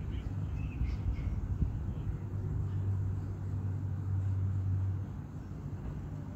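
Outdoor ambience: a low steady rumble that eases off about five seconds in, with one short thump about a second and a half in and a few faint chirps near the start.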